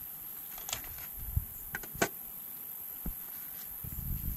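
A few faint, scattered clicks and taps of a plastic fork on foam plates as fried plantain slices are served, with two short low rumbles, one about a second and a half in and one near the end.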